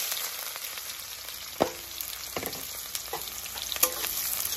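Sliced onions sizzling in hot mustard oil in a metal kadai, with a metal spatula knocking and scraping against the pan a few times as they are stirred.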